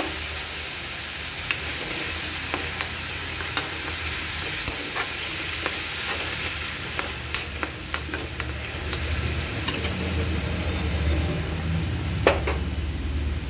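Tomato puree and onion masala sizzling gently in a metal kadhai over a low gas flame while being stirred with a spoon, which scrapes and clicks against the pan now and then. A low hum underneath grows stronger about ten seconds in.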